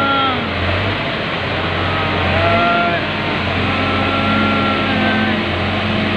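Kaiser S2 spider excavator's diesel engine running loud and steady, with whining tones that come and go as the boom is moved.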